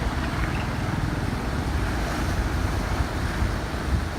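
Wind buffeting the microphone over a steady rush of floodwater.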